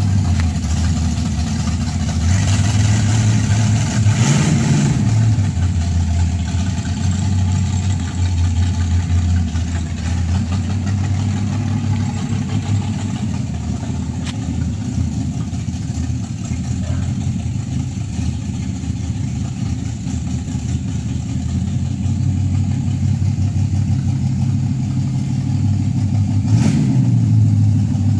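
V8 engine of a swapped Datsun 240z running at a low, steady idle, with two short rises in revs: one about four seconds in and one near the end.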